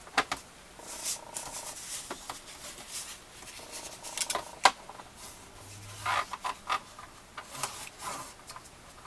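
Cardstock being scored and handled on a scoring board: a stylus scraping along the grooves, card sliding and rustling, and a few sharp clicks and taps, the loudest about four and a half seconds in.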